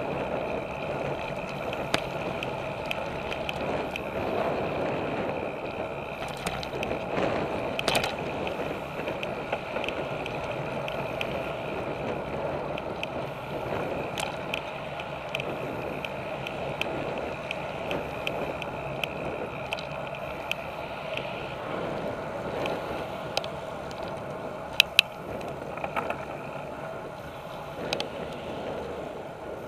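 Road bike riding noise picked up by a handlebar-mounted camera: a steady rumble of tyres on the paved path and rattle through the bars, with an occasional sharp click, one about eight seconds in and two close together later on.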